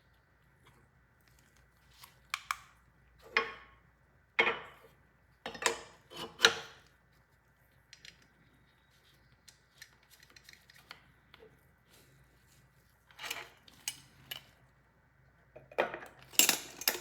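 Hard clicks and clatters from handling a GoPro underwater housing and its fixture plate assembly. There are sharp knocks about two to seven seconds in and again near the end, with faint ticks between.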